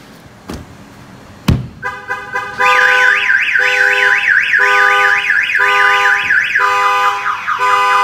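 Two knocks of a fist on an F-150's side window, then the Excalibur 1670 car alarm's siren going off: a fast up-and-down warbling tone over a lower tone that pulses about once a second, shifting to a falling pattern near the end. The knocks on the glass have set off the alarm's shock sensor.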